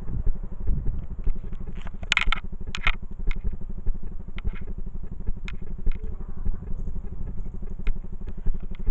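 Steady low rumbling background noise, with a short cluster of crackles and clicks about two to three seconds in and scattered sharp ticks after. No thunder is heard from the storm.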